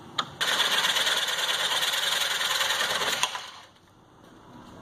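Cordless power tool cutting about three threads off the end of a stainless steel bolt: a steady grinding for about three seconds after a short click, then dying away as the tool stops.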